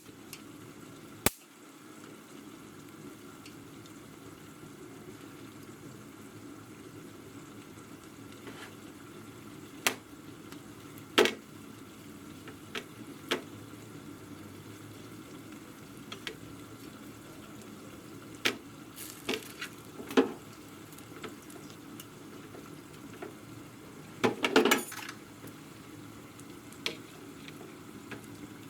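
Steady low sizzle of chicken simmering in an uncovered pot, with scattered clinks and knocks of kitchen utensils and dishes and a short flurry of clattering near the end.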